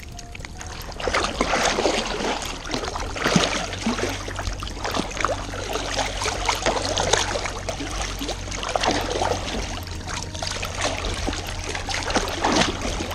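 Short half-paddle blade splashing into the water in irregular strokes about once a second, with water slapping and dripping around a pool-noodle raft.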